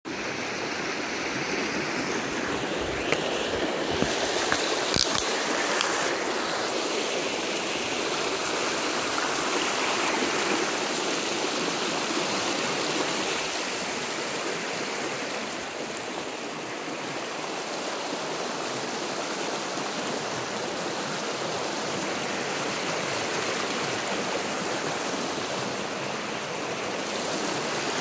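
Shallow rocky creek rushing over stones and through small riffles: a steady, even rush of water, with a few brief clicks about three to five seconds in.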